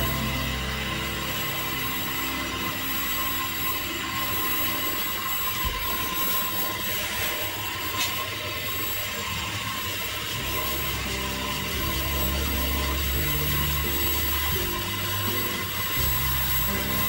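Background music of slow, sustained low notes that change every second or two, over a steady hiss.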